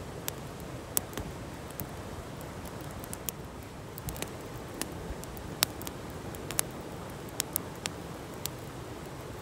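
Wood campfire crackling, with irregular sharp pops, over the steady rush of a stream.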